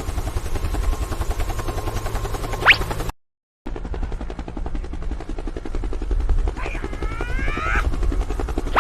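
Helicopter rotor sound effect, a steady rapid chopping. It cuts out briefly a little after three seconds in. A quick rising whistle comes just before the gap, and a few rising sliding tones come near the end.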